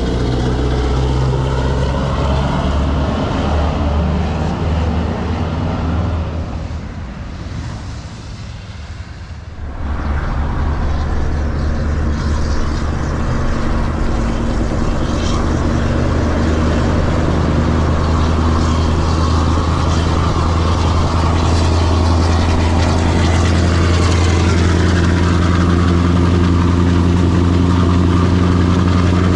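Scania V8 heavy-haul truck pulling a loaded low-loader, its engine running steadily under load; the sound fades briefly about seven seconds in, then returns as a loud steady V8 drone with road noise, heard from a car driving alongside, rising slightly in pitch near the end.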